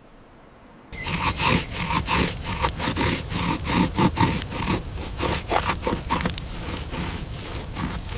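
A wooden stick scraped back and forth against a wooden board in rough, quickly repeated strokes, starting about a second in.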